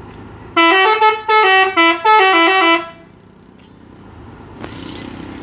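Bus 'telolet' musical horn playing a quick tune of stepping notes in several short blasts for about two seconds, then steady background traffic noise.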